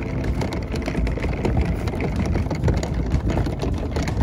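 Plastic wheels of a rolling cooler rattling over wooden dock planks as it is pulled along, with a continuous rumble and irregular clicks.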